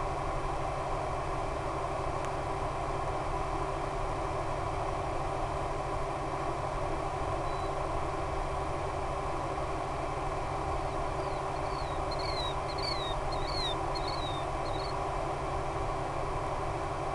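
A steady, even hum and hiss, with a bird chirping a quick run of short falling notes about two-thirds of the way through.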